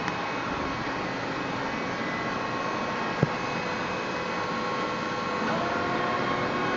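Five-axis CNC machining centre running: a steady mechanical hiss with a constant whine, a single sharp click about three seconds in, and new steady tones coming in about two-thirds of the way through.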